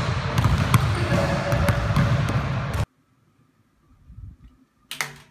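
A basketball bouncing repeatedly on a hardwood gym floor against loud, dense gym noise, cutting off suddenly about three seconds in. After a quiet stretch there are a few faint taps, then a sharp knock near the end.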